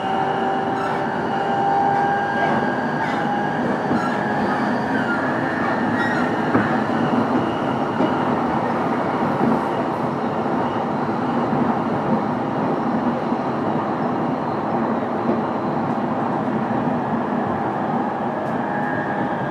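Running noise heard from inside a JR East E233-series electric train's motor car. The whine of the VVVF inverter and traction motors fades out over the first several seconds, leaving the steady rumble of the wheels on the rails with an occasional click. Faint motor tones return near the end.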